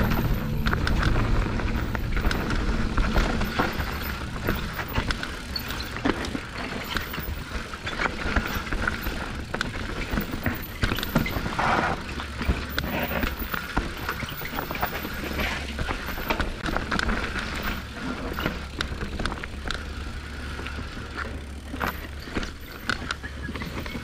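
Santa Cruz Bronson mountain bike descending a rough trail: a continuous clatter and rattle of the bike and tyres over rocks and roots, with low rumble from wind on the camera mic.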